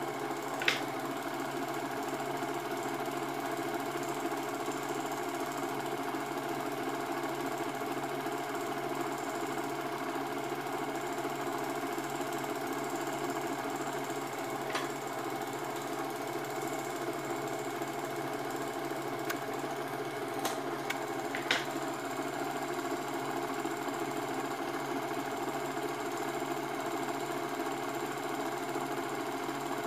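Film projector running, a steady rapid mechanical clatter and whirr that does not change, with a few sharp clicks scattered through: one about a second in and a cluster about two-thirds of the way through.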